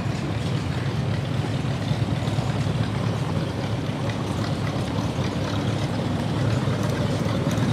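Steady low rumble of a running engine, unchanging throughout.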